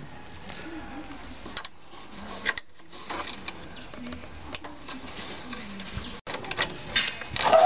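Small hand wrench working the bolts of a wooden saw-table top: scattered metal clicks and clinks and wood knocks, the loudest knock near the end.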